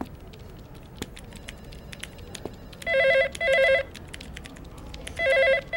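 Corded desk telephone ringing with an electronic trilling ring in pairs: two double rings, the first about three seconds in and the second near the end.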